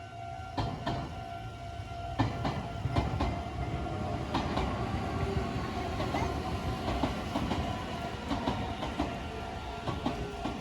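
Meitetsu train running through the level crossing, its wheels rumbling and clacking over the rail joints. Under it the crossing's electronic warning bell rings with a steady pulsing tone.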